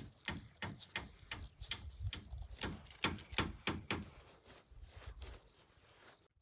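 Blue-and-yellow plastic drip-irrigation fitting being twisted together by hand, giving a run of quick plastic clicks, about three to four a second, that stop about five seconds in.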